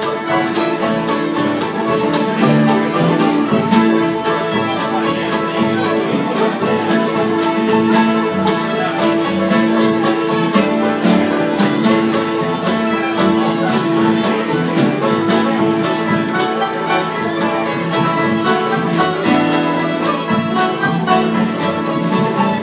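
Acoustic string-band jam: several acoustic guitars strummed together with an upright bass and other plucked strings, playing one tune without a break.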